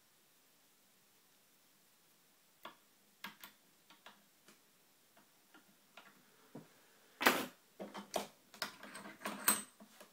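Scattered small clicks and taps of a brass euro cylinder lock and lockpicking tools being handled, sparse at first and busier and louder in the last three seconds.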